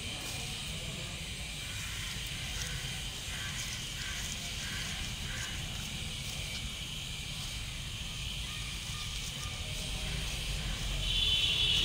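Dry wood-chip potting medium being pressed down by hand around an orchid seedling in a plastic net pot: light, scattered crackling of chips over a steady high hiss.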